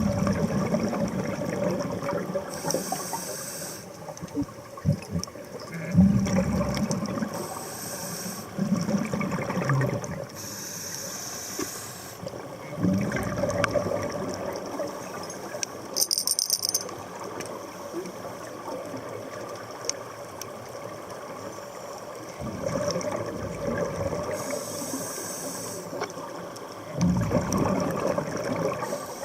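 Scuba diver breathing through a regulator underwater: short hissing inhalations alternate with longer rumbling bursts of exhaled bubbles, repeating every few seconds.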